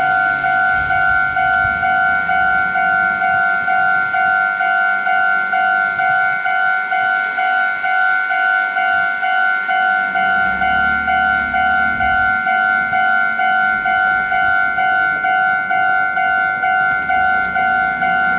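Japanese railway level-crossing alarm ringing: a loud electronic two-tone ding repeated evenly a little over twice a second, the warning that a train is approaching.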